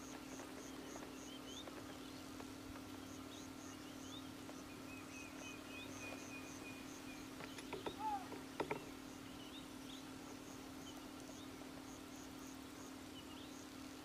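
Faint grassland ambience: birds calling in short rising chirps and one longer held whistle, over an insect chirping in rapid high pulses and a steady low hum. A few louder clicks and a falling bird note come about eight seconds in.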